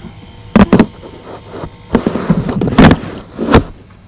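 Footsteps climbing steps: several loud thumps, a pair close together then more about a second apart, with a stretch of rustling and shuffling in between.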